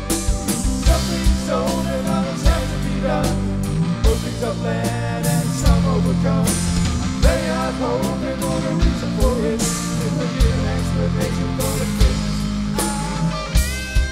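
Rock band playing an instrumental passage: a steady drum-kit beat and a sustained bass line under a wavering lead melody.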